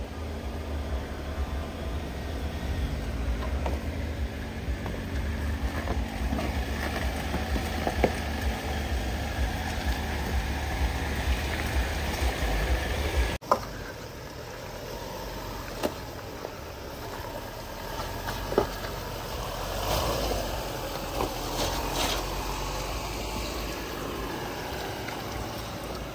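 Off-road vehicle engine running with a steady low rumble. The sound breaks off abruptly about halfway through, after which the engine is quieter and there are scattered knocks and clatter.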